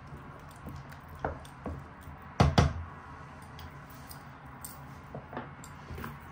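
Wooden spoon stirring a stew in a stainless steel pot with small scraping clicks, then two sharp knocks close together about two and a half seconds in, typical of the spoon being tapped on the pot's rim. A faint steady low hum runs underneath.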